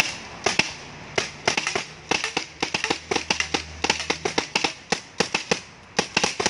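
Several paintball markers firing in quick, irregular succession, about five sharp pops a second.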